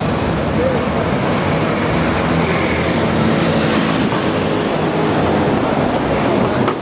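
Red double-decker city bus driving past on a street: a steady, loud rush of engine and road noise as it approaches and goes by close.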